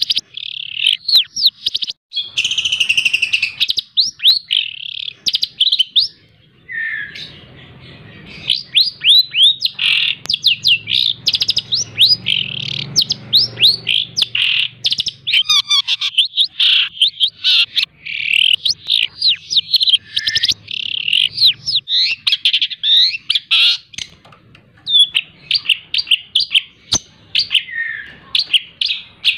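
Long-tailed shrike (cendet) singing a rapid, tightly packed stream of sharp falling notes, full of imitations of other birds' calls, with a few short pauses.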